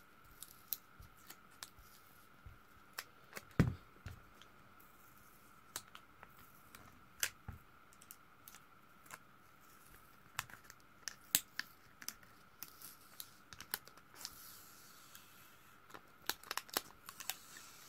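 Adhesive tape and a foil sticker being peeled by hand off the inside of a Turkcell T60 smartphone: irregular small clicks, ticks and crackles of tape and plastic parts, with a short rustle late on, over a faint steady high whine.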